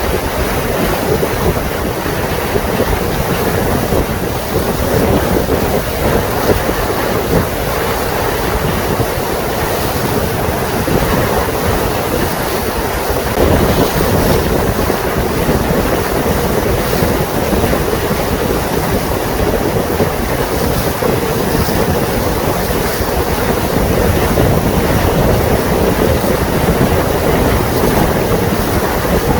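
Steady rush of wind on the microphone over water noise, as on the deck of a moving lake boat, with a constant low hum underneath.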